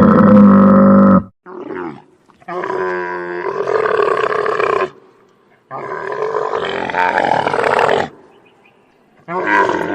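Camel calling: a series of loud, long, wavering bellows, one ending about a second in, a short one just after, then two longer calls of two to three seconds each, and another beginning near the end.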